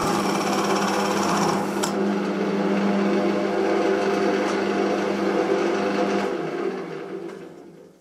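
Wood lathe motor running with a steady hum while oak is sanded on the spinning chuck. The rubbing hiss stops about two seconds in. Near the end the lathe is switched off and winds down to quiet.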